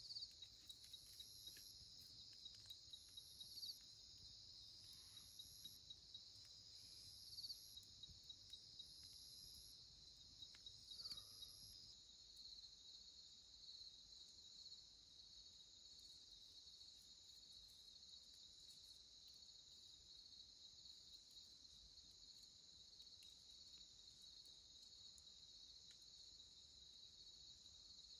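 Faint night insect chorus: crickets trilling steadily, joined for the first dozen seconds by a higher insect call in short pulses about every two seconds.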